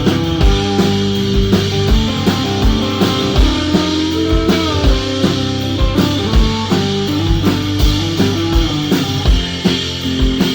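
Rock band playing: guitar chords and notes over a steady drum beat with a kick drum a little under twice a second, no singing.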